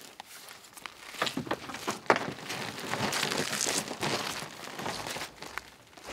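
Footsteps crunching on a gravel and wood-chip shore, with rustling close to the microphone and a sharp knock about two seconds in.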